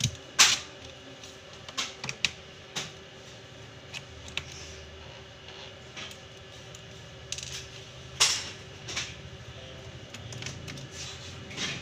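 Small screwdriver taking the screws out of an HP 15 laptop's bottom case, with scattered clicks and taps of metal and plastic on the desk. Two louder knocks stand out, one just after the start and one about eight seconds in.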